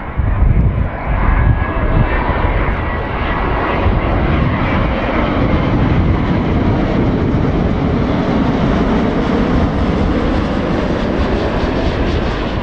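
Jet noise from a Boeing 787-9's Rolls-Royce Trent 1000 turbofans on final approach, a loud steady rumble as the airliner flies past and descends towards the runway. It swells suddenly about half a second in and then holds steady.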